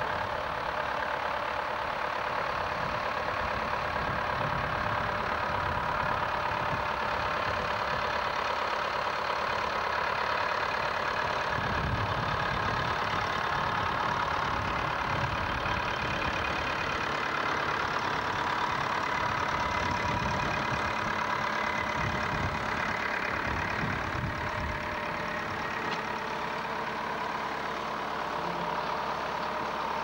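Nuffield tractor engine running steadily at low revs.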